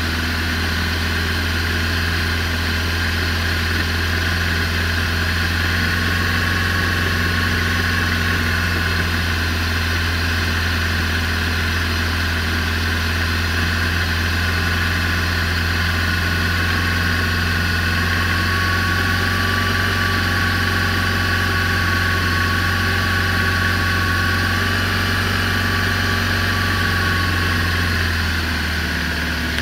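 BMW R1200RT's boxer twin engine running steadily in second gear, with a thin steady whine above the engine note. The sound eases off slightly just before the end.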